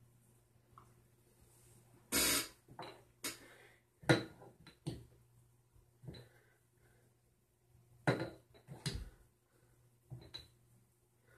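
Small hard objects being handled and set down: a string of irregular clicks and knocks with a few short scrapes, the loudest a couple of seconds in, near four seconds and near eight seconds.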